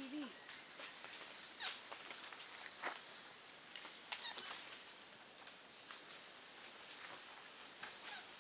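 Steady high-pitched drone of insects in tropical forest, with a few short sharp snaps or clicks scattered through it and a brief low call right at the start.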